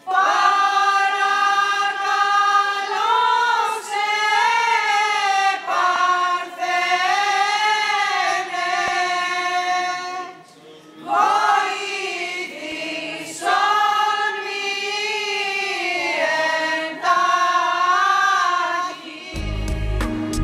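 Unaccompanied choir singing a Greek Orthodox hymn in long melodic phrases, with a short break about halfway through. In the last second, instrumental music with a deep bass cuts in.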